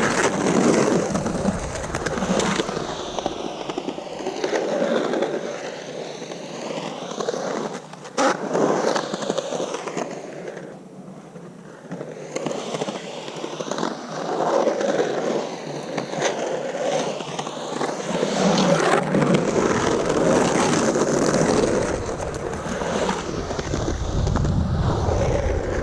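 Skateboard rolling and carving around a skatepark bowl on Santa Cruz Slime Ball 97a urethane wheels, the wheel roar rising and falling in pitch as speed changes through the transitions. A sharp click about eight seconds in.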